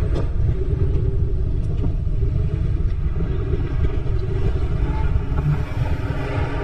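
Steady low rumble of riding a Segway D40X electric kick scooter: its wheels rolling over pavement, with wind buffeting the microphone.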